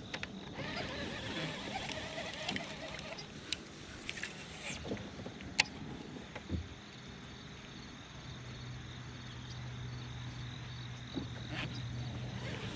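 Knocks and clicks of handling on a fishing kayak, one sharp knock loudest about halfway through. A low steady hum comes in about two-thirds of the way through.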